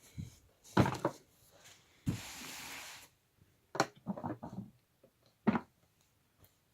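Handling noises: a few sharp knocks and clatters, with a steady rushing scrape lasting about a second in the middle.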